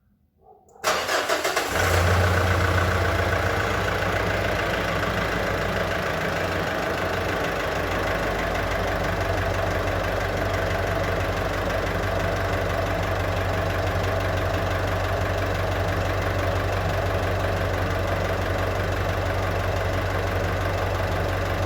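Mitsubishi Pajero engine cranking briefly and catching within a second on its first start after the balance shafts were removed and a restored turbocharger was fitted. It runs a little higher for the first couple of seconds, then idles steadily.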